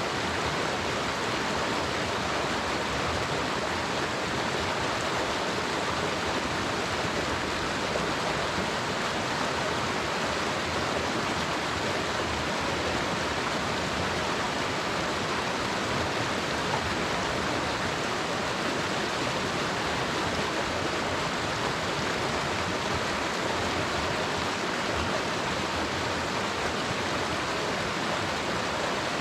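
Shallow mountain creek rushing steadily over its rocky bed, an even, unbroken water noise.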